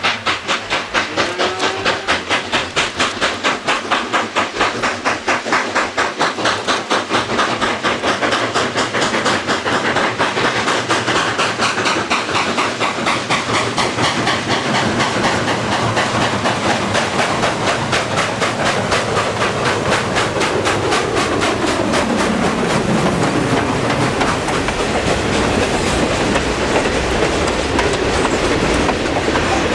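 Steam freight train running, with a steady rapid beat of about four strokes a second. A tone glides in pitch past the middle.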